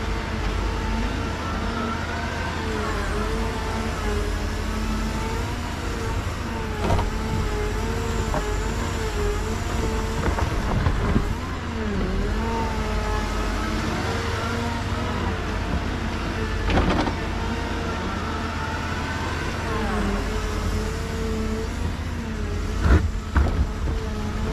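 Cat M317F wheeled excavator working, its diesel engine and hydraulics running with a steady pitched drone that repeatedly dips and recovers as the hydraulics take load. A few sharp knocks come through, the loudest near the end.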